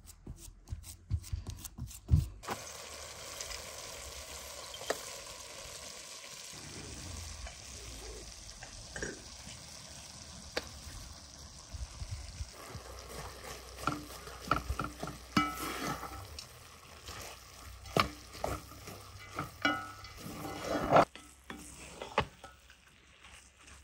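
Minced meat filling frying in a metal pot, sizzling steadily, with a wooden spatula stirring and scraping against the pot through the second half. Before the sizzle begins there are a couple of seconds of hands working a bulgur dough. The sizzle cuts off near the end, leaving a few light scrapes.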